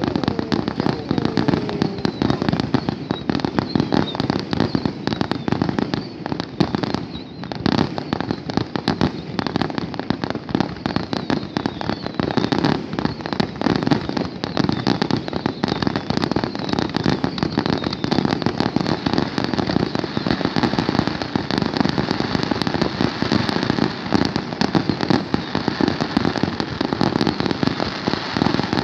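Fireworks display: a rapid, continuous barrage of bursts and crackling. There is a brief lull about seven seconds in.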